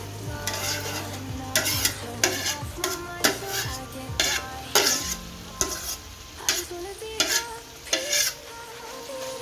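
Food sizzling as it fries in a pot while being stirred, with about a dozen sharp scrapes of the stirring utensil against the pot.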